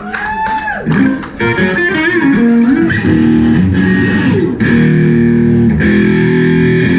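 Electric guitars and bass played live through amplifiers, loose playing between songs: gliding, bending notes at first, then held chords from about three seconds in.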